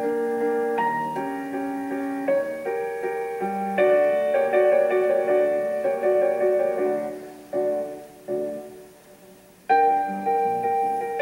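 Background piano music: a gentle melody of struck notes that ring and fade, dying down to a brief lull near the end before picking up again.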